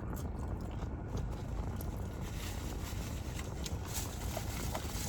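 Close-miked chewing of tortilla-chip chicken nachos, with a few faint crunches and mouth clicks, over a steady low rumble in a car cabin.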